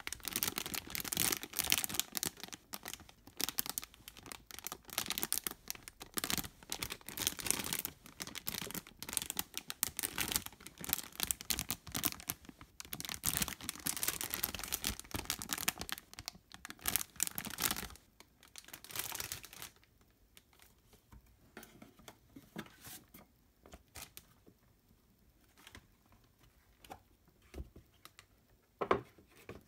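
Clear plastic bags around plastic model-kit runners crinkling and rustling as they are handled. The sound is dense and continuous for about eighteen seconds, then drops to scattered light taps and rustles.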